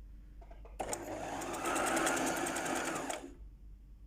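Brother portable free-arm electric sewing machine running a row of stitches. Its needle strokes follow one another in a fast, even rhythm. It starts about a second in and stops abruptly about two seconds later.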